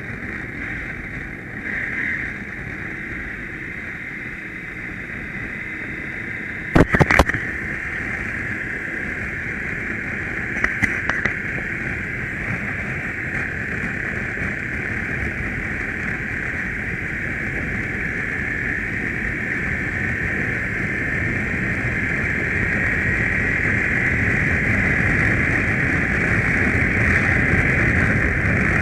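Riding noise from a BMW GS adventure motorcycle on the move: engine and wind rushing past the camera, growing gradually louder toward the end. A few sharp knocks come about seven seconds in, and again about eleven seconds in.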